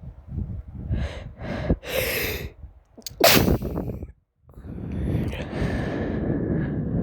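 A sneeze: a few quick gasping inhales, then one loud, sharp sneeze about three seconds in. A longer steady rushing noise follows.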